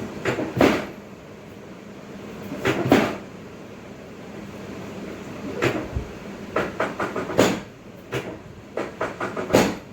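Short knocks and clunks in several clusters during a chiropractic adjustment: single knocks near the start and about three seconds in, then a quicker run of knocks through the second half.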